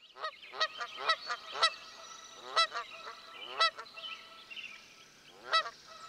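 Geese honking: about nine short honks, several in quick succession in the first two seconds, then a few spaced farther apart.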